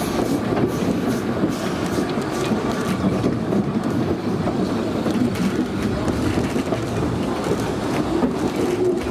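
Narrow-gauge (2 ft) wooden passenger carriage running on the rails, heard from on board: a steady rumble of wheels on track with light irregular clicks.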